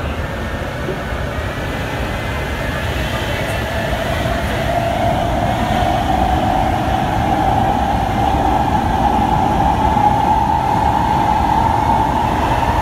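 Inside a Kawasaki Heavy Industries C151 metro car picking up speed: a steady rumble from the running train, with the traction motor whine rising slowly in pitch and growing louder.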